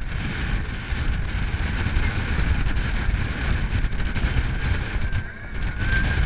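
Wind buffeting the microphone over the steady low rumble of an open-air dune-ride vehicle driving along a sand trail.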